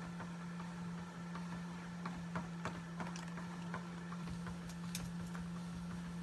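Treadmill running with a steady motor hum while a husky walks on the moving belt, her paws and claws ticking on it irregularly, a few times a second.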